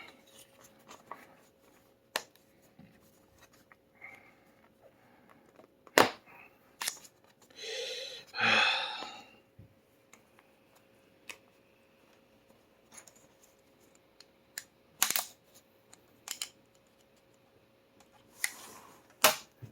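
Plastic bottom panel of a Dell Inspiron 7000 2-in-1 laptop being pried off: scattered sharp clicks as its retaining clips snap loose, with a longer rasping scrape about eight seconds in.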